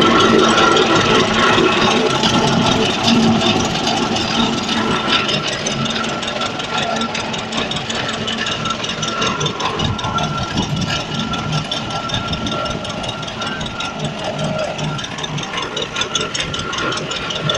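Vintage Saunderson tractor's engine running while pulling a plough, with a steady rattle and fast even ticking, gradually getting quieter over the first dozen seconds.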